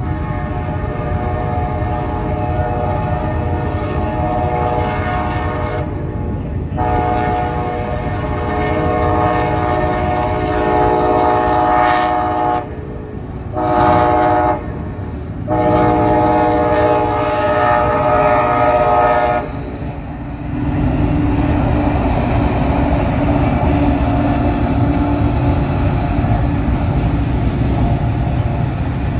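Nathan K5LA five-chime air horn on a Union Pacific SD70ACe-T4 locomotive sounding long, long, short, long, the grade-crossing signal. After the last blast, about twenty seconds in, the locomotives pass with a steady diesel rumble and low hum and the rattle of the train.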